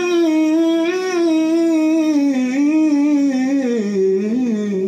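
A solo singer's melismatic vocal run (riff) played back slowed down by 20%: one unbroken sung line with quick wavering note changes that steps downward overall toward the end.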